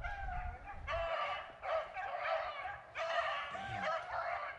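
A pack of beagles baying on a rabbit's trail: several long, drawn-out howls overlap, rising and falling in pitch, in three runs with short breaks.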